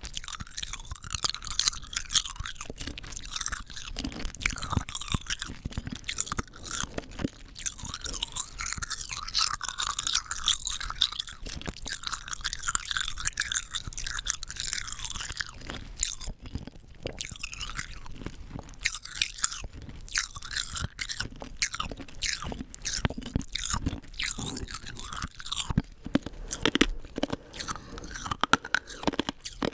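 Hard rock candy being bitten and chewed, a steady run of sharp cracks and crunches as the sugar crystals break between the teeth.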